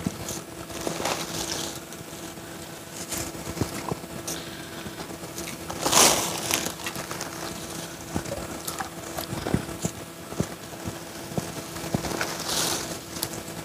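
Nylon fishing net being paid out of a plastic sack into the water: crinkling and rustling of net and sack with scattered clicks and small splashes, loudest about 6 s in and again near the end. A faint steady hum lies underneath.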